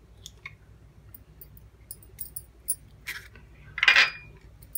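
Scattered faint clicks, then a clatter about three seconds in and a louder clink with a brief ring about four seconds in: a steel spoon knocking against a small glass bowl.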